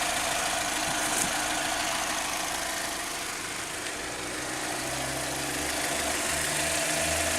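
2004 Chevrolet Malibu Classic's 2.2-litre Ecotec four-cylinder idling steadily and smoothly on fresh oil.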